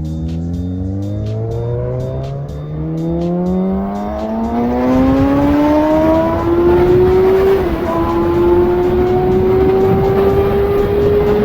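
Kawasaki ZX-6R inline-four motorcycle engine accelerating, its note climbing steadily. There is a quick dip like a gear change about seven and a half seconds in, then a slower rise. A rushing noise builds as speed increases.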